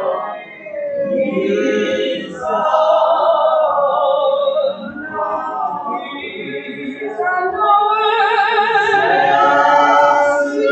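Church congregation singing a hymn unaccompanied, many voices together in phrases with short breaks between them.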